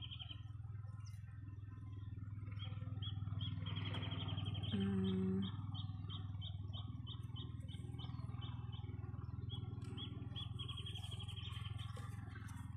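Outdoor birdsong: a bird giving runs of quick repeated high chirps over a steady low hum, with one brief low-pitched tone about five seconds in.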